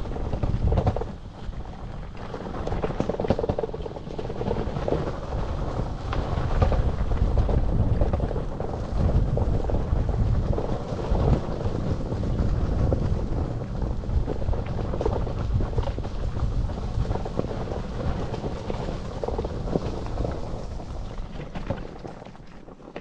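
Wind buffeting the microphone and tyres rolling over rough ground on a moving electric bike, a steady low rumble with scattered knocks from bumps. It dies away near the end.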